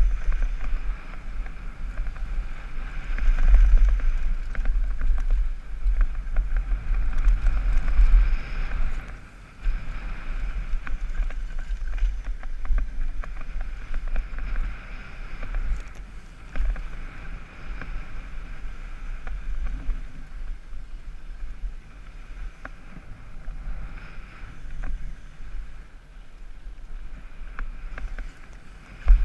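Wind buffeting a helmet camera's microphone on a fast downhill mountain-bike descent over a dirt trail, with tyre noise and scattered knocks and rattles from the bike over bumps. A higher steady buzz swells and fades, strongest in the first several seconds and dropping away briefly about nine seconds in.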